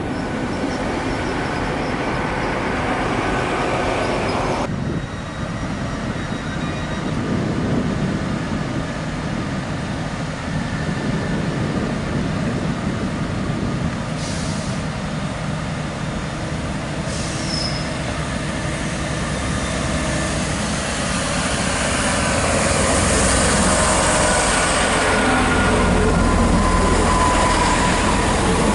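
GWR Class 165 Turbo diesel multiple units at a station platform: diesel engines running with wheels on rails, and the noise changes abruptly about five seconds in. From about twenty-two seconds the rumble and rail noise grow louder as a unit moves along the platform.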